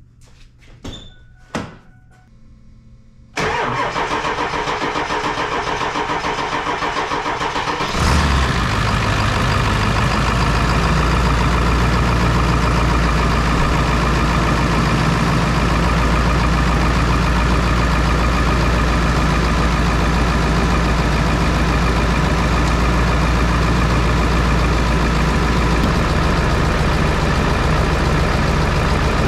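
A Ford 7.3L Powerstroke V8 diesel is started for the first time after a high-pressure oil pump replacement. A few faint clicks and short beeps come first. About three seconds in the starter cranks the engine for about four and a half seconds, then the engine catches and settles into a steady idle.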